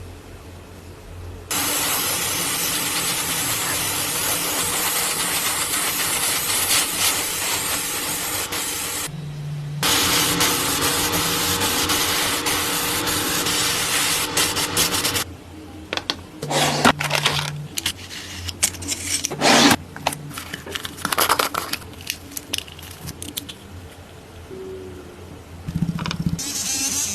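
A power tool working on the car, running in two long stretches and then in short bursts that start and stop.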